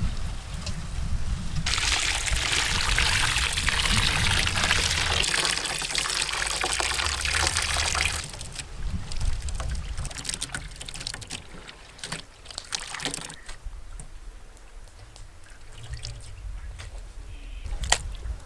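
Water poured from a steel pot onto a large steel basin of peeled prawns, a steady splashing pour that starts about two seconds in and stops about eight seconds in. After that, hands rummage through the wet prawns in the basin to wash them, with scattered small splashes and clicks.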